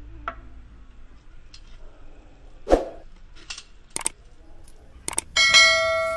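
A few short clicks and knocks, then a bright bell chime about five seconds in that rings on: the sound effect of an animated subscribe button and notification bell.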